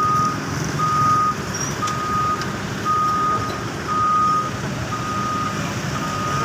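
Reversing alarm on heavy equipment beeping steadily, about one beep a second, over the low running of diesel engines as the machines back up.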